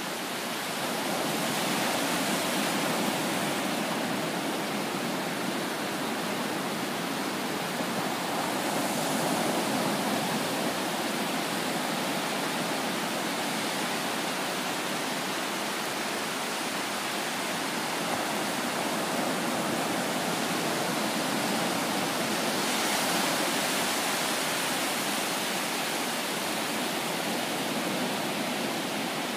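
Ocean surf: low waves breaking and washing up a flat, shallow beach, a steady rushing that swells as a wave breaks, a couple of seconds in, again near ten seconds, and near twenty-three seconds.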